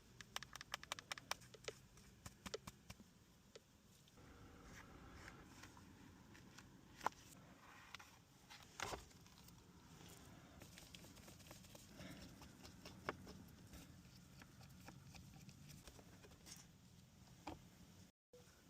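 Faint small clicks and taps from handling tools and parts during an iPad repair. A quick run of ticks comes in the first few seconds, then single sharper clicks every second or two, over a low hum.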